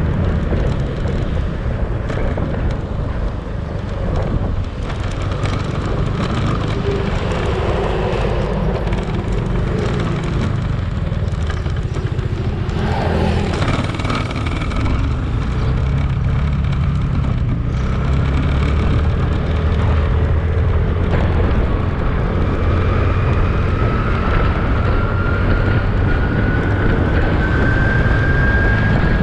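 Motorcycle running while being ridden, with wind and road noise on the action-camera microphone. Over the last several seconds a whine rises slowly in pitch.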